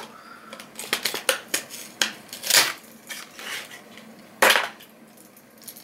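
Clear plastic and cardboard lure packaging crackling and clicking as it is pried open and a crankbait is worked out of it, with two louder rustles about two and a half and four and a half seconds in.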